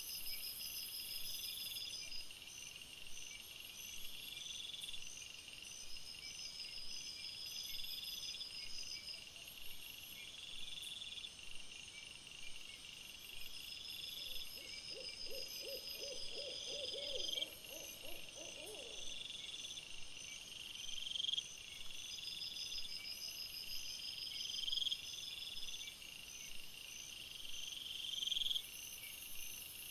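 Night insects chirping in a steady, evenly repeating pattern. In the middle comes a short train of low, rapid pulses lasting about four seconds.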